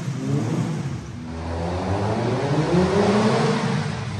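Twin-engine Honda Civic's engines revving: the revs drop away about a second in, climb steadily for a couple of seconds, then ease off near the end.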